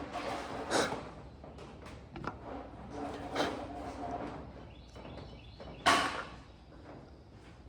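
Three separate sharp knocks or clunks, about one second in, about three and a half seconds in and, loudest, about six seconds in, with fainter handling noises between them.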